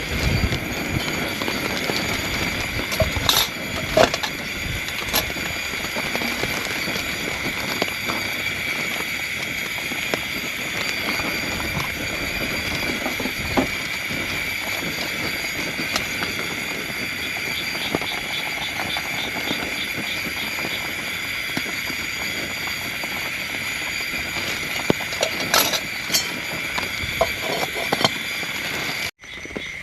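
Steady rain falling, under a continuous high-pitched animal chorus, with a few sharper taps of drops now and then.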